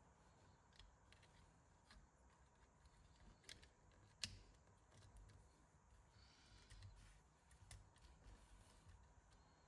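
Faint clicks and taps of small model-truck chassis parts being handled and pressed together, with one sharper click about four seconds in.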